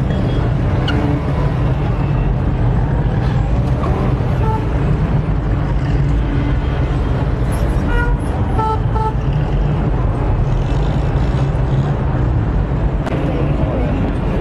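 Busy city street ambience: a steady rumble of road traffic, with a few short car-horn toots about eight seconds in.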